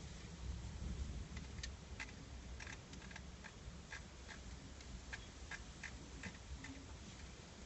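Light, irregular ticks, about two or three a second, beginning about a second and a half in, over a low steady rumble.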